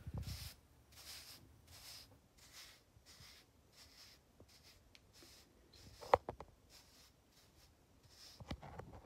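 Hairbrush bristles swept repeatedly over short hair, a soft scratchy stroke about every two-thirds of a second, with one sharp click about six seconds in.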